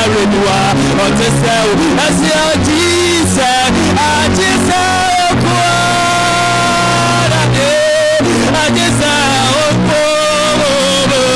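A man singing a worship song into a microphone, his voice amplified over instrumental accompaniment with steady bass notes.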